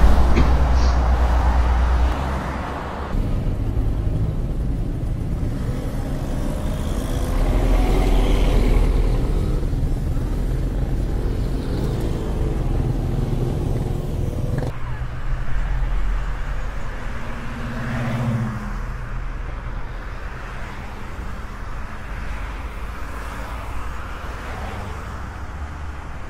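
Motor vehicle noise: a steady low rumble with an engine tone rising and falling near the middle, changing abruptly about fifteen seconds in.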